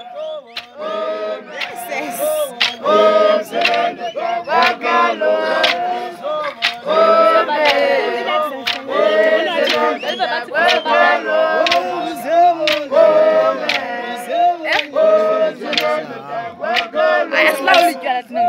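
A group of men and women singing and chanting together without instruments, in traditional Xhosa style, broken by frequent sharp percussive strikes.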